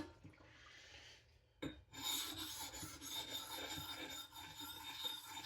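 Steady, gritty abrasive rubbing on a whetstone, starting about two seconds in after a brief hush and a single click: the edges of a Coticule/Pyrenees combo sharpening stone being knocked off.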